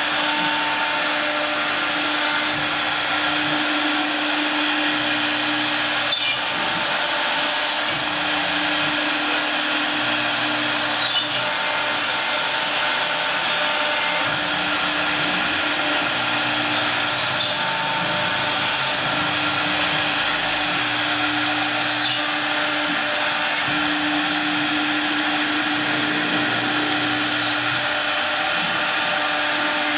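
CNC wood router spindles running steadily while cutting: a continuous high whine, with a lower hum that comes and goes every few seconds and a faint click about every five seconds.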